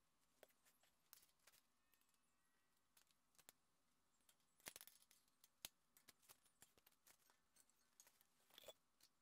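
Faint, scattered clicks and light rattles of a black plastic drag chain's links being handled and flexed, with the loudest cluster about halfway through.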